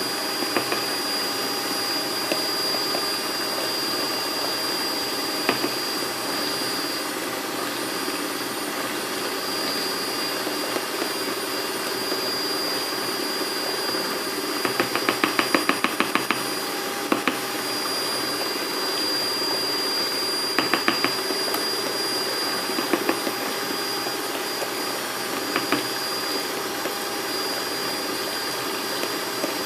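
Electric mixer motor running steadily with a constant whine as it beats cake batter, with a few short bursts of rapid clicking partway through.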